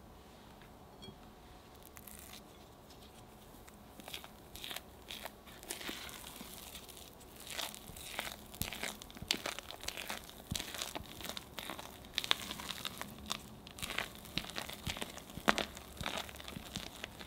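Spatula folding meringue into thick red velvet cake batter in a glass bowl: irregular soft scrapes and wet squishes against the glass, starting about four seconds in and getting busier toward the end.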